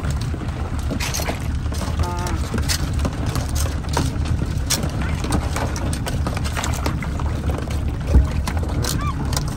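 Water pouring and splashing aboard a small boat over a steady low rumble, with scattered knocks and clicks and one heavier thump near the end.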